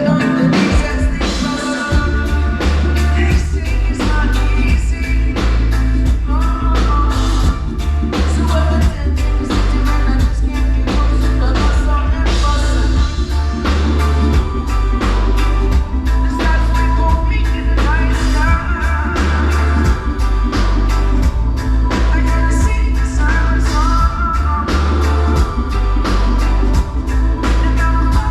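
Reggae band playing live with a singer: drum kit keeping a steady beat over a heavy bass line, with guitar.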